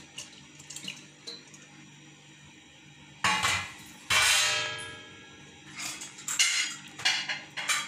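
Steel kitchen utensils clanking: two sudden ringing clangs about three and four seconds in, the second dying away over about a second, then a run of lighter metal clatters near the end.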